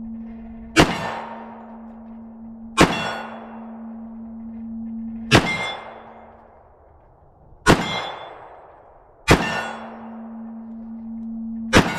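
Six single pistol shots from a Kimber Shadow Ghost .45 ACP, fired slowly and evenly spaced about two seconds apart, each with a sharp crack and a trailing echo.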